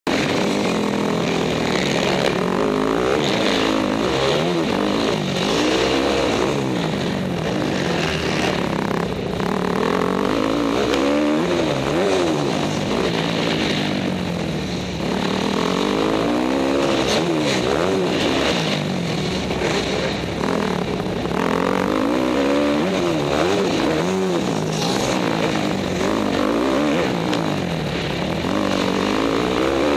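Dirt bike engine heard from a helmet-mounted camera, revving up and dropping back over and over, a rise and fall in pitch every couple of seconds as the bike is ridden over the jumps and turns of a dirt track.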